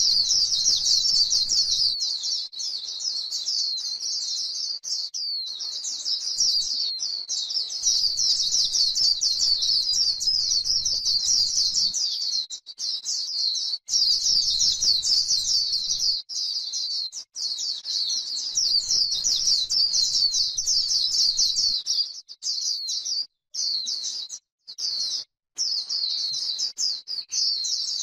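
White-eye singing a rapid, unbroken high-pitched twittering warble, the 'líu' song that keepers use to stimulate other white-eyes. The song cuts off briefly a few times near the end.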